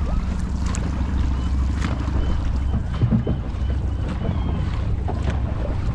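Wind rumbling heavily on the microphone aboard a dragon boat under way, over a haze of water noise with faint, irregular splashes from the paddles.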